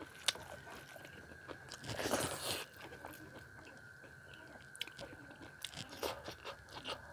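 Close-up mukbang eating sounds: a mouthful of rice and chicken chilli being chewed with irregular wet clicks and smacks, with the soft scrape of fingers mixing rice on a steel plate. A faint steady high whine runs underneath.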